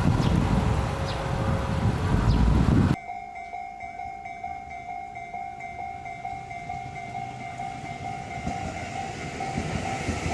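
A Tobu Noda Line train passing a level crossing with loud rumbling wheel noise while the crossing's warning bell rings its repeated kan-kan. About three seconds in, the train noise cuts off abruptly and the crossing bell goes on ringing at an even pace.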